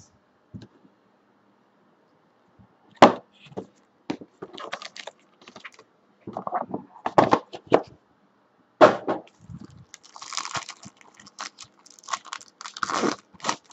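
Cardboard trading-card boxes and packs handled on a table, giving scattered knocks and taps, then a foil card-pack wrapper crinkling from about ten seconds in.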